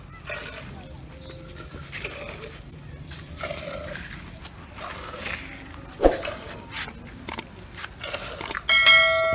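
A cricket chirping steadily, a short high chirp about twice a second, with a sharp click about six seconds in. Near the end a loud ringing chime of several steady pitches sounds: the sound effect of a subscribe-button animation.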